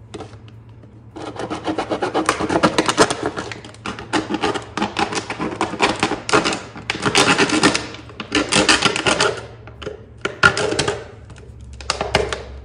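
An empty plastic drinking bottle being cut open, its plastic crackling and clicking in a run of bursts of a second or two each with short pauses between.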